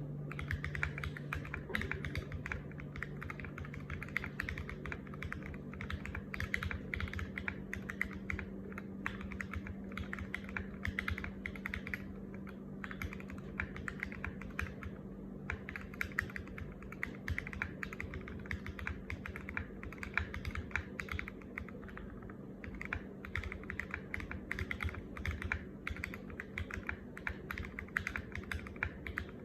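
Custom Tofu65 mechanical keyboard with lubed Alpaca linear switches, a brass plate and SA-profile ABS doubleshot keycaps, typed on continuously: a fast, dense run of keystrokes. A low steady hum sits underneath.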